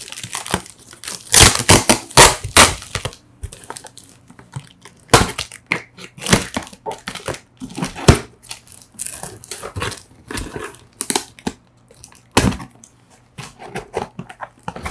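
Cardboard shipping box being opened and unpacked: irregular crinkling and crunching of cardboard and packing material, loudest in the first few seconds.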